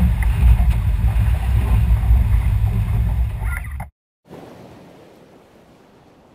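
Low, steady rumble of wind on the microphone and water washing against a boat, which cuts off suddenly a little before the end. After a brief silence, a faint wash of waves fades away.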